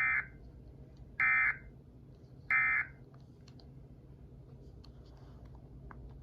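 Emergency Alert System end-of-message signal: three short bursts of SAME digital data tones (the NNNN code), about a second and a quarter apart, marking the end of the alert. They come in the first three seconds.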